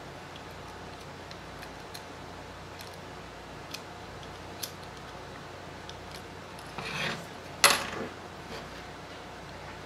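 A small metal hand tool working a component on a monitor's power-supply circuit board: a few faint ticks, a short scrape about seven seconds in, then a sharp clack of tool against board just after it.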